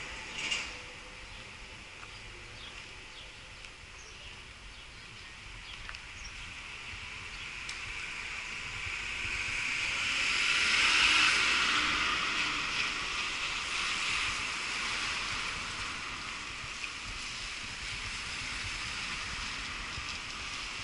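Wet-street traffic ambience: a passing vehicle's tyres hiss on the wet road, swelling to a peak about eleven seconds in and then fading. A short knock sounds just after the start.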